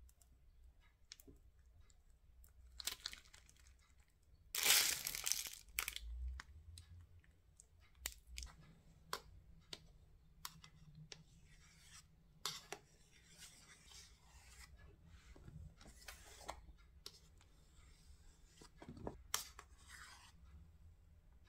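Quiet food-prep handling sounds: a plastic piping bag crinkling, loudest about five seconds in, then an offset spatula spreading cream with short scrapes and light clicks against a metal cake ring.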